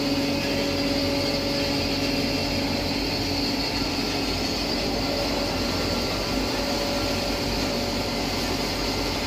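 20 HP rice husk pulverizer, a blower-type hammer mill with cyclone, running steadily: a continuous mechanical hum with a high hiss over it.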